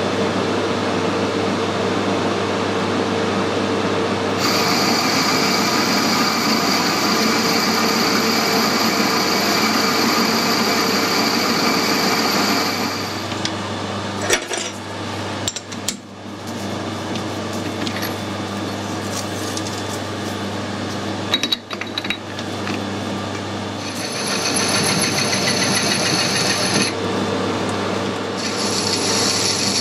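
Metal lathe running while a boring bar takes a light finishing cut inside a steel tube, with a steady machine hum and a high ringing whine from about four seconds in. The spindle stops around fourteen seconds in, then runs again, and the high whine returns twice near the end.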